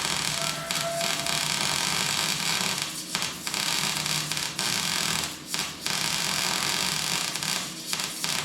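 Welding arc crackling and hissing in runs on car-body sheet metal, with brief pauses between welds about three, five and a half and eight seconds in.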